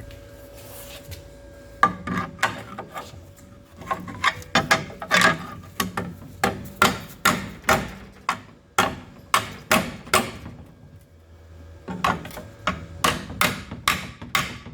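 Steel hammer striking sheet-steel panel against a dolly, a long run of sharp metallic blows about two a second with a short ring after each, panel-beating overlapping metal on a car's front cross member.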